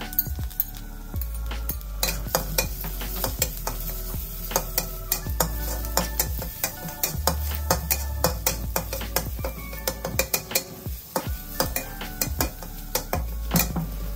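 Steel wok spatula and spoon scraping and clinking against a wok, with many quick metallic clicks, as minced garlic and shallots sizzle in hot oil. Soft background music with held notes underneath.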